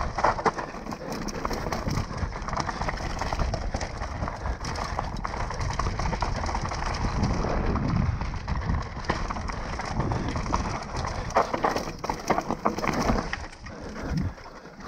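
Mountain bike riding fast down a rough forest singletrack: tyres rumbling and crunching over dirt, stones and dry leaves, with many quick rattles and knocks from the bike, and wind buffeting the microphone. The noise drops briefly near the end.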